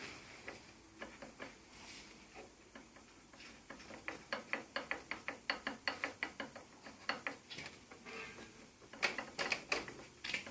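Loose camshaft timing gear of a Dnepr MT-10-36 motorcycle engine rocked back and forth by hand, giving a run of sharp metal-on-metal clicks about four a second, with a few more clicks near the end. The clicking is the gear's excessive play on the camshaft, worn in at the keyway.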